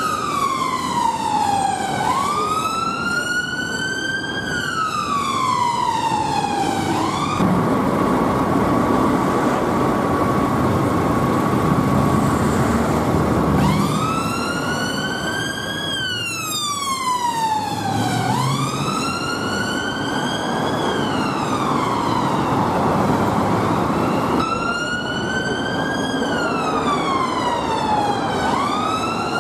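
Ambulance siren wailing in a slow rise and fall that repeats about every four to five seconds, over city traffic. A third of the way through the wail gives way to one steady held tone for about six seconds, then resumes.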